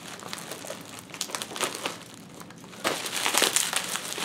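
Clear plastic wrapping crinkling and crackling as it is cut open and pulled off a packaged item by hand. The crackling is light at first and gets louder and denser about three seconds in.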